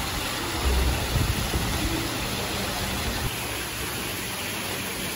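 A steady, even hiss of outdoor noise, with low rumbles now and then, the strongest about a second in.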